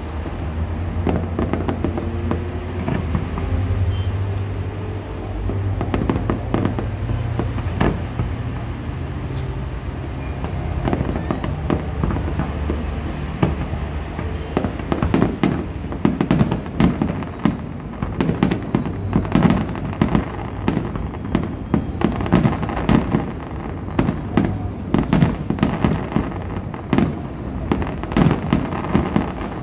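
Aerial fireworks display: a steady barrage of shell bursts and crackling stars. About halfway through it grows much denser, into rapid crackle and pops.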